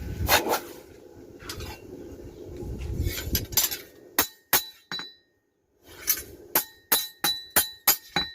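A hammer striking steel in a blacksmith's forge. There are a few duller blows first, then a run of about ten sharp, ringing metallic clinks, broken by a brief silence about five seconds in.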